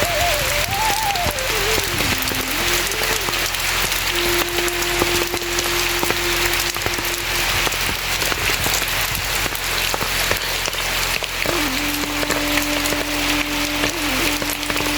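Steady rain hissing and pattering, with a thin single-line melody of background music over it: wavering at first, then long held notes.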